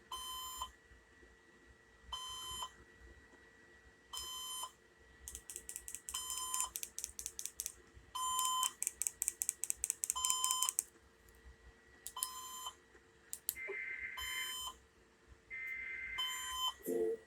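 Electronic beeps from Emergency Alert System monitoring equipment, one short beep about every two seconds. Two stretches of rapid clicking come about five and eight seconds in, and two short buzzy bursts come near the end.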